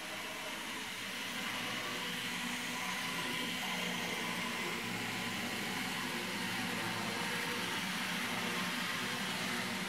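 Electric model train running on a layout: a steady whir of the locomotive's motor and its wheels rolling on the rails, a little louder about a second and a half in.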